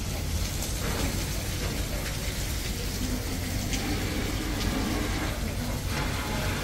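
Steady rushing hiss of water from fire hoses spraying a burning building, with a few faint crackles.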